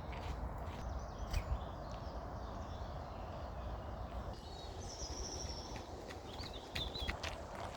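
Footsteps on a muddy path over a steady low rumble, with a few short bird chirps about two-thirds of the way through and near the end.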